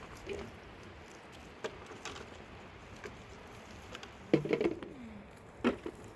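A bird calling, with one louder note about four seconds in that slides down in pitch, among a few light knocks and clicks.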